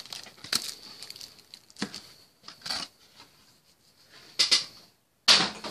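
Clear stiff plastic packaging crackling and rustling in the hands in a string of short bursts, the loudest near the end.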